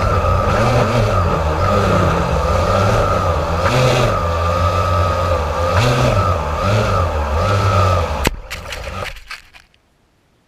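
Blade 350 QX3 quadcopter's electric motors and propellers humming, heard from its on-board GoPro, their pitch rising and falling gently as the craft is flown. About eight seconds in a sharp click sounds, then the motors spin down and stop.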